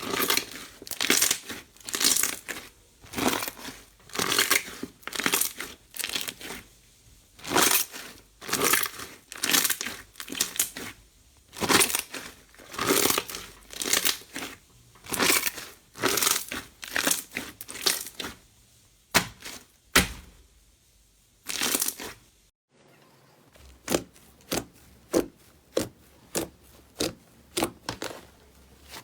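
Slime being squeezed and pressed by hand, a steady series of crackling, squelching bursts about one or two a second, with a brief break about two-thirds of the way through.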